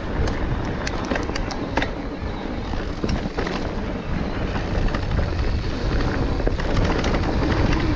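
Mountain bike rolling fast down a dirt trail: a steady rumble of tyres and air rushing past the microphone, with a quick run of sharp clicks and knocks in the first couple of seconds as the bike rattles over rough ground.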